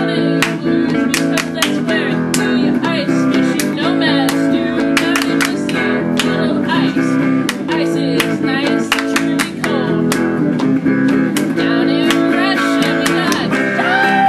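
Guitar strummed in a steady rhythm, playing chords through an instrumental stretch of a song.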